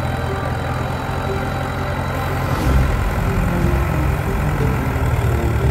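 Farm tractor engine running steadily, then louder and rougher from about two seconds in as the front loader's grapple arm works.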